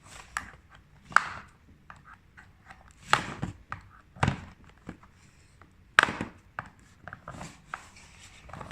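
Scissors working at the plastic clips that hold a toy blaster in its cardboard box, with sharp snips, clicks and knocks of the packaging. Five loud snaps or knocks stand out among smaller clicks.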